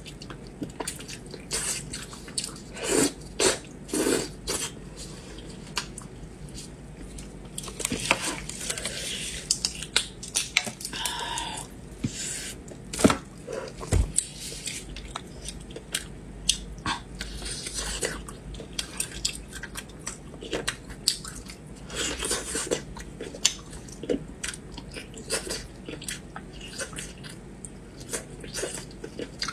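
Close-up eating sounds of braised pork on the bone being bitten and chewed, with many short wet mouth clicks and smacks throughout.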